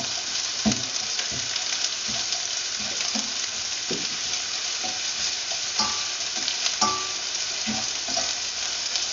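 Julienned ginger and chopped garlic sizzling in hot oil in a non-stick frying pan, a steady hiss, while a slotted spatula stirs them with scattered scrapes and light knocks against the pan.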